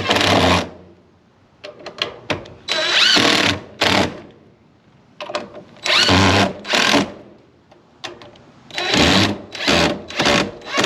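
Power drill driving screws through a wooden strip in repeated bursts of the trigger, the motor whining up in pitch with each pull, with quick short pulses near the end as the screw is snugged down.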